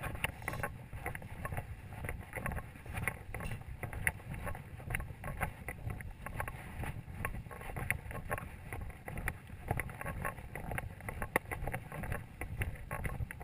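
Footsteps and gear rattling of a soldier ruck marching on a dirt track, heard as many small irregular clicks and knocks over a low wind rumble on the microphone.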